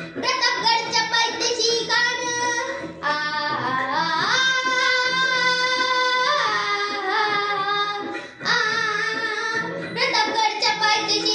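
A child singing in a high voice: quick phrases at first, then long held, wavering notes in the middle, a short breath break, and quicker phrases again.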